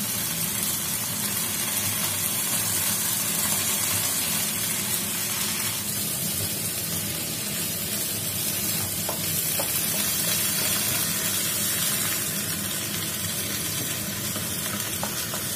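Vegetables sizzling steadily as they are stir-fried in a non-stick wok, stirred and tossed with a wooden spatula. A few faint ticks of the spatula against the pan can be heard.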